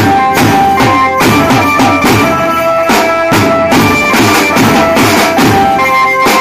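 Banjo party band playing: a held melody line over a fast, steady beat on dhol, snare and large side drum, with hand-held metal percussion.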